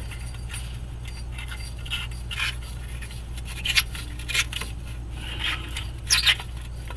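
Hand tools clinking and scraping against the truck's exhaust collector bolts as they are worked loose, in irregular short metallic clicks and scrapes, the sharpest a little before the middle and near the end.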